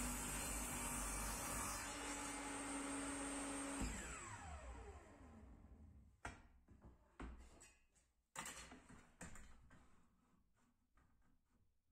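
Table saw running through a cut in a small wooden board, its motor pitch dipping slightly under the load. About four seconds in it is switched off and the blade winds down with a falling whine. Then several sharp knocks as wood and a ruler are handled on the steel table top.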